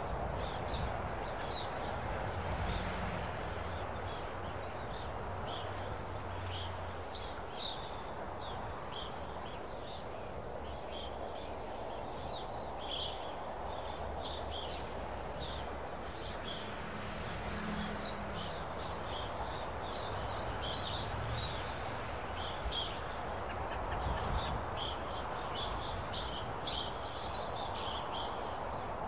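Natural outdoor ambience: a steady, even noisy haze with a low rumble beneath, dotted throughout with many short, high chirps from insects and birds.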